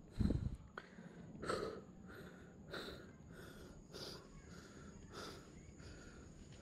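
A man panting hard, out of breath from climbing a steep hill on foot: quick heavy breaths, nearly two a second. A loud low thump sounds on the microphone just after the start.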